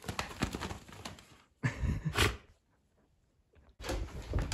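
A dog playing with and shaking a plush toy: scuffling, rustling and soft thumps, with a louder burst about two seconds in. A second of near silence follows before the scuffling starts again near the end.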